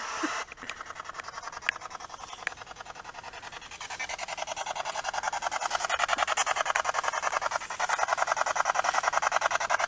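Spirit box sweeping through radio stations: a fast, even chop of static, many pulses a second, getting louder about four seconds in. A few sharp clicks in the first three seconds.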